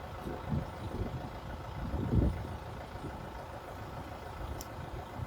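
Diesel engine of a Kubota farm machine running steadily at low speed, with a few low rumbles.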